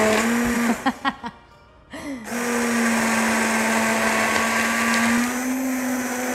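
Kenwood hand blender motor whirring as it purées soft-cooked berries in a pan. It cuts out just under a second in, starts again about two seconds in and runs steadily, its hum edging up slightly in pitch after about five seconds.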